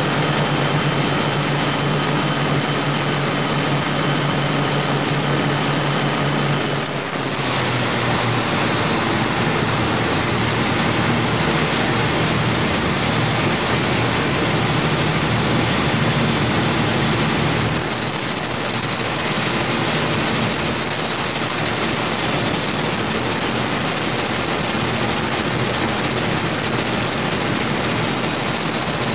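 A powerboat's twin Scania 12-litre six-cylinder diesel engines running at speed under a heavy, steady rushing noise of wind and water. A steady hum in the engine sound drops out about a quarter of the way through while the rushing noise carries on.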